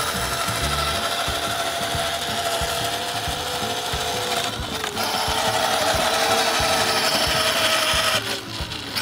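Battery-powered ride-on toy quad's small electric motor and gearbox whining steadily, with its hard plastic wheels rumbling on asphalt. The whine cuts out briefly about halfway through and again for most of a second near the end.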